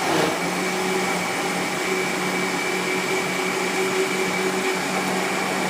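Electric kitchen blender running at a steady speed, blending kencur (aromatic ginger) with water for jamu beras kencur: an even whir with a constant hum.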